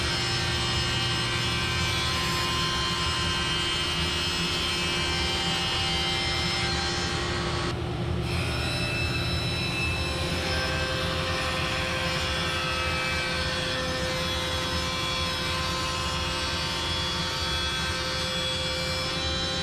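Sliding panel saw running steadily and cutting sheets of half-inch pre-finished birch plywood. About eight seconds in there is a brief break in the high end of the noise, and the pitch of the running machine shifts slightly after that.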